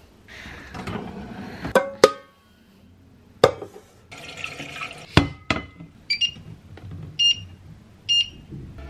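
Stainless steel cooking pot knocking and clanking as it is handled and set down, then three short beeps about a second apart from an induction hob's touch controls as it is switched on.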